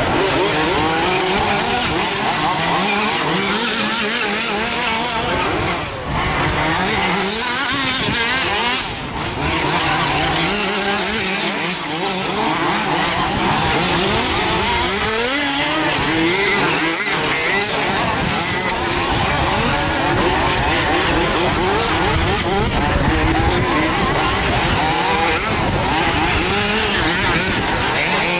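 Two-stroke petrol engines of 1/5-scale off-road RC buggies racing, revving up and down in overlapping rising and falling whines with no let-up.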